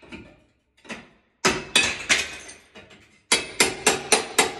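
Claw hammer striking the end of a crowbar wedged behind old ceramic wall tile, sharp metal-on-metal blows that each ring briefly, prying the tile off the wall. A few blows come about a second and a half in, then a quick run of about four a second near the end.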